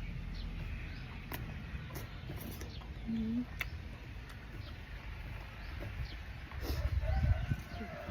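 Chickens clucking now and then over a steady low rumble, with scattered sharp clicks and a louder low-pitched stretch about seven seconds in.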